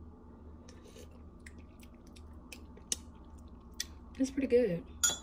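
A person tasting freshly made coffee: faint sips with small clicks and mouth sounds, then a short "mmm" of approval about four seconds in and a sharp click near the end.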